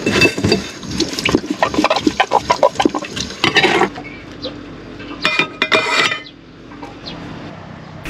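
Dishes being washed in a small sink: running water and splashing, with chopsticks, wooden spoons and a metal bowl clattering against a stainless steel pot. A few ringing metal clinks come about five seconds in.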